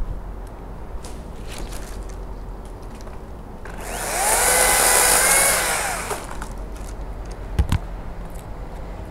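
Makita top-handle battery chainsaw spun up for a couple of seconds: its electric whine rises, holds briefly and winds back down. A sharp knock follows a couple of seconds later.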